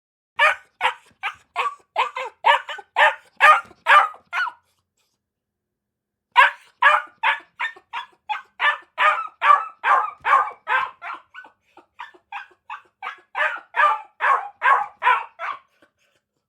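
A dog barking in quick runs of short barks, about three a second, breaking off for about two seconds in between.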